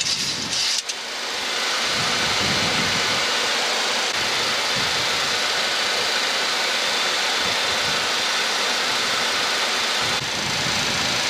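Steady rushing airflow and engine noise in an airliner's cockpit on final approach, with the landing gear down and flaps set to 30.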